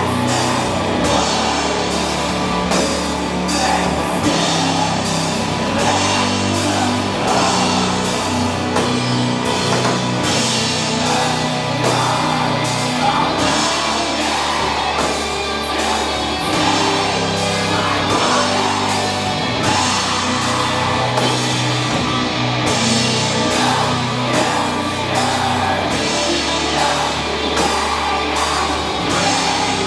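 Doom metal band playing live: heavily distorted guitars and bass holding long low notes that change every second or two, over drums and cymbals.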